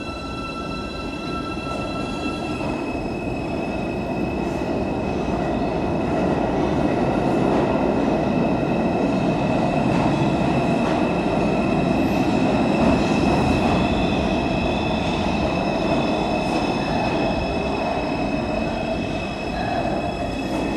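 R142 subway train rolling along the platform. Its rumble builds over the first several seconds and then holds steady, with several high, steady squealing tones above it.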